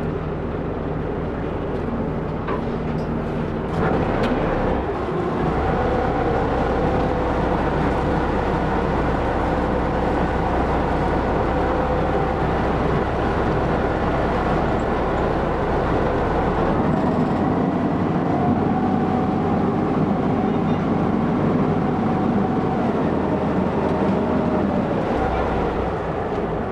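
Small passenger ferry's engine running steadily under way. It gets louder about four seconds in.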